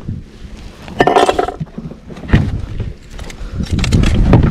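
Hard knocks and clinks: a short clattering rattle about a second in, a single sharp knock, then a quick run of knocks near the end, over a low rumble of wind on the microphone.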